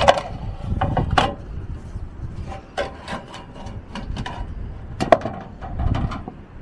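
Scattered knocks, clicks and rubbing from handling a new sheet-metal roof trim strip, over low wind buffeting on the microphone.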